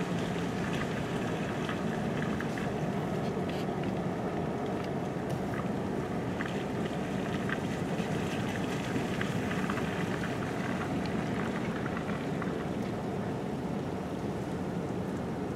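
Steady low rumble of a car running, heard from inside the car, with faint scattered ticks.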